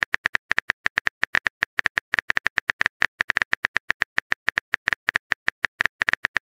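Phone keyboard typing sound effect: a rapid, uneven run of short key-tap clicks, about eight a second, as a text message is typed out.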